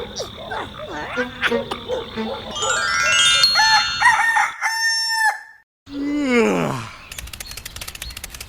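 A rooster crowing, one long call with a rising start, about three seconds in. Short repeated croaking calls come before it, and after a brief gap a falling tone is followed by a run of rapid clicks.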